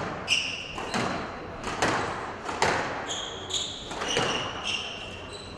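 Squash rally: the ball is struck sharply about once a second by the racket and off the court walls, between shoe squeaks on the court floor.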